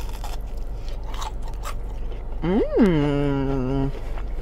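Chewing a bite of crispy battered fried fish with faint crunches, then a hummed "mmm" of enjoyment that swoops up in pitch, drops back and is held low for about a second.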